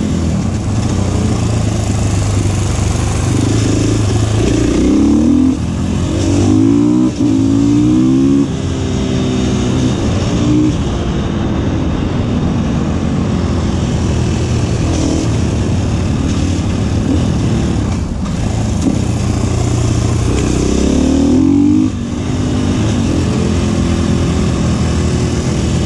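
Supermoto motorcycle engine under way, accelerating hard several times with its note rising in pitch and dropping briefly between pulls, over a steady rush of wind noise.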